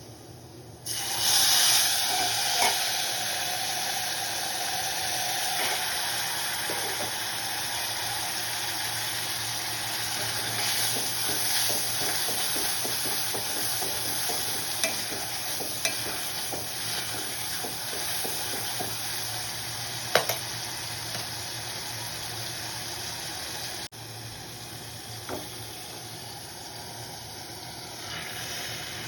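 Food dropped into hot oil in a pan, bursting into a loud sizzle about a second in, then frying steadily while a spoon stirs and now and then clinks against the pan. The sizzle turns quieter abruptly near the end.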